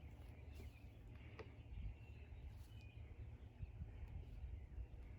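Quiet outdoor ambience: a low wind rumble on the microphone with a few faint bird chirps.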